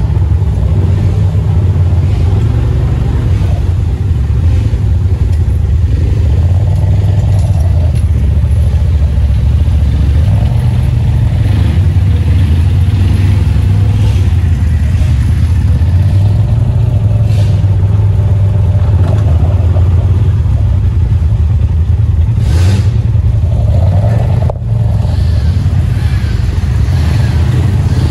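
Polaris RZR Pro XP Turbo side-by-side's turbocharged twin-cylinder engine running under load while driving off-road, its pitch shifting with the throttle, with a momentary dip about 25 seconds in.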